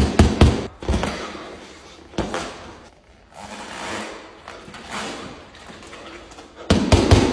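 Boxing-glove punches thudding into a hanging heavy bag, several in quick succession in the first second and one more about two seconds in, then heavy panting breaths from an exhausted boxer. A quick cluster of knocks comes near the end.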